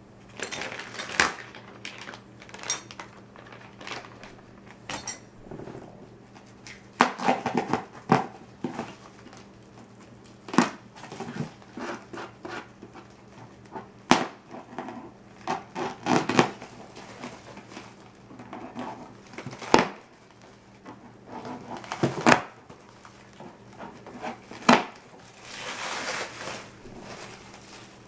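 Metal engine parts and their packaging being handled: irregular sharp metallic clinks and knocks every few seconds, with stretches of rustling and scraping between.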